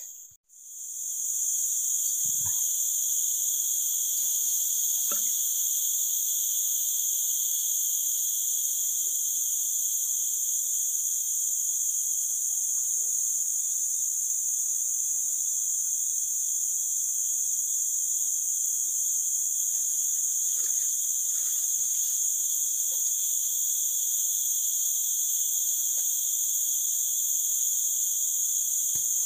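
Steady chorus of forest insects: a continuous high-pitched buzzing drone at several pitches at once, unchanging throughout.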